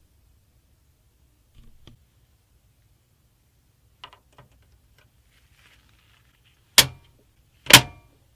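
Hatch panels of a Hyte Y70 Touch PC case being closed: a few light clicks, then two loud snaps about a second apart near the end, each ringing briefly, as the covers latch shut.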